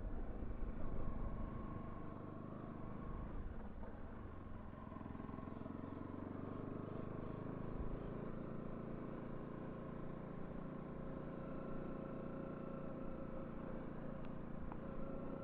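Bajaj Pulsar NS 200's single-cylinder engine running steadily at low road speed on a dirt road, heard from the rider's seat.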